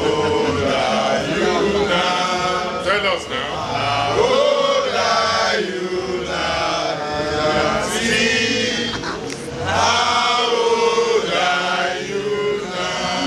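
A group of people chanting and singing together, many voices at once.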